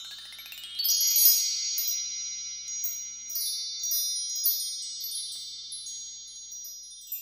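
Shimmering chime sound effect for an animated title intro: a quick rising run of bright high notes in the first second, then a sustained wash of high ringing tones with a few sparkling accents, slowly fading toward the end.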